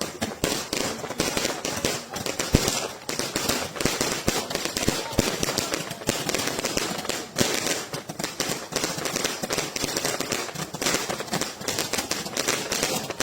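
Bazuca 888 destellos firework going off: a fast, unbroken stream of sharp crackling pops.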